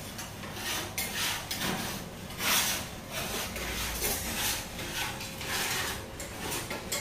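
Raspy scraping noises coming in uneven swells about once a second, the loudest about two and a half seconds in, over a faint steady hum.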